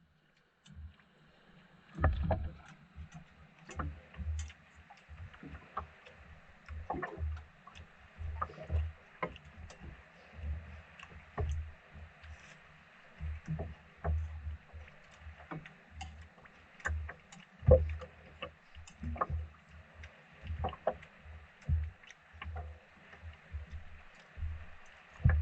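Sounds aboard a small fishing boat on the water: irregular knocks, clicks and low thumps from the boat and gear, over a steady faint low hum.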